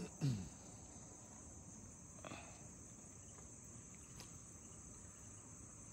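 Steady high-pitched chorus of crickets, with one short falling sound just after the start and a faint click about two seconds in.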